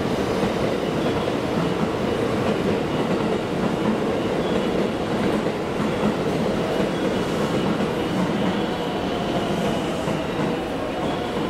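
JR West 103 series electric train rolling slowly into a station platform, with a steady running noise of wheels and running gear.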